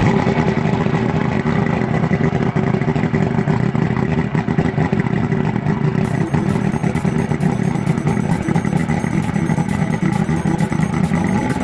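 Outboard motor running steadily, its pitch holding even throughout.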